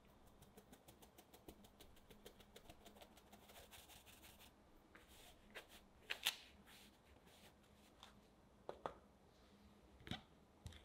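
Fine-mesh sieve shaken over a glass mixing bowl, cake flour sifting through with rapid soft ticking, several ticks a second. A few sharper taps follow, then light knocks on the glass bowl near the end as the silicone spatula goes in.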